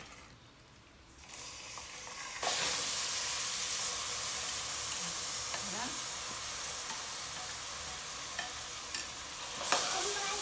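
Chopped raw pieces tipped from a bowl into a pot of hot oil, which starts sizzling loudly about two seconds in and keeps frying with a steady hiss while a ladle scrapes and stirs.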